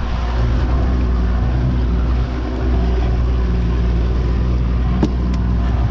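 A late-1990s 90 hp two-stroke Yamaha outboard running steadily at trolling speed, during its lower-unit break-in. Two or three brief sharp clicks come about five seconds in.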